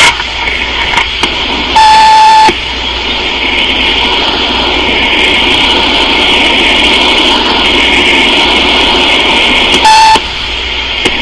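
Answering-machine beep, a single steady tone about two seconds in, followed by several seconds of hiss from a taped phone line with no voice on it. A second, shorter beep comes near the end.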